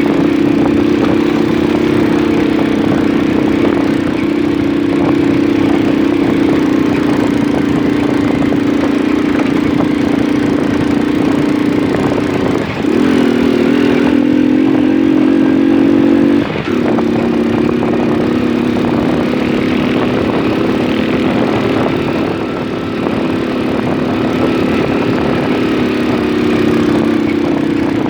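Moped engine running steadily under way, with two brief drops in pitch and level near the middle as the throttle eases or a gear changes.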